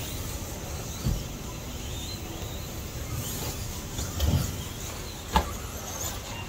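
Electric RC stadium trucks racing: the thin whine of their electric motors rising and falling, with a few thumps as trucks land off jumps and hit the track, the sharpest knock about five seconds in.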